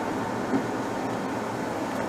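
Steady drone of a car's engine and tyres as it moves slowly through city traffic, heard from a dashcam inside the car, with a brief soft bump about half a second in.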